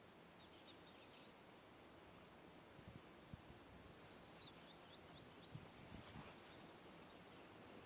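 Faint songbird song: two short phrases of quick high notes falling in pitch, one at the start and one about three seconds in, over a quiet outdoor background.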